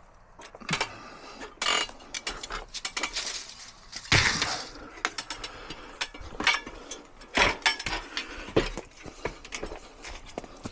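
Irregular metallic clicks, clinks and knocks as micro-mesh gutter guard sections are handled and fitted onto a gutter, with a brief scrape about four seconds in.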